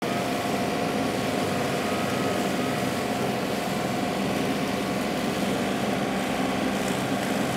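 John Deere compact tractor running steadily while its loader-mounted hydraulic rotary mower cuts tall grass, with a constant whine over the engine.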